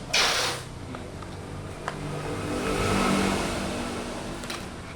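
A motor vehicle's engine passing by, rising and then fading, loudest about three seconds in. A short burst of hiss comes just at the start.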